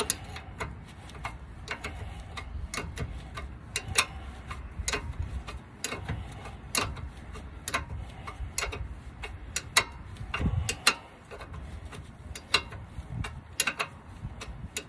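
Irregular sharp metal clicks from a wrench working the bolt on a rear brake caliper as it is tightened, some coming in quick clusters.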